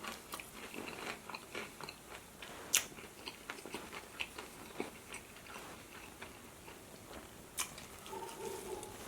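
A person chewing and biting into a Raising Cane's meal close to the microphone: a run of small crunchy clicks, with two sharper crunches about three seconds in and again near the end.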